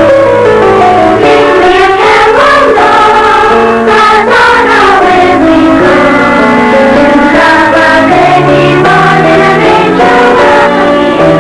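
A school children's choir singing a Christmas carol in held, sliding notes over steady low accompanying notes.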